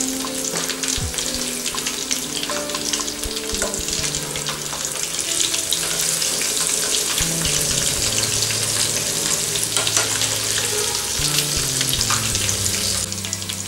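Masala-coated chicken leg pieces deep-frying in hot oil over a medium flame: a dense, steady crackling sizzle. The pieces are turned in the oil with a wire-mesh skimmer.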